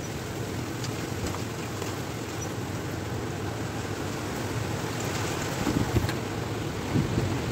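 Light rain falling steadily while wind gusts through the trees, with a couple of short low thumps near the end as a storm comes on.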